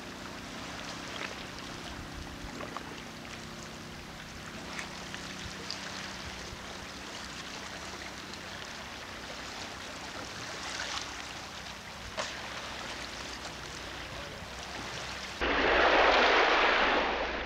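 Sea water lapping and splashing around a small boat: a steady wash with scattered small splashes. A much louder rushing noise cuts in suddenly about two seconds before the end.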